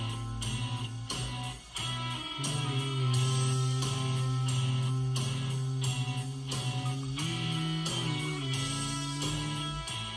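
Music with guitar over a bass line and a steady beat.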